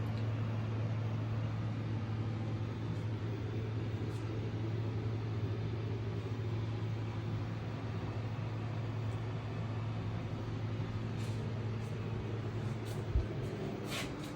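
A steady low mechanical hum at one constant pitch, with a few faint clicks and one short thump near the end.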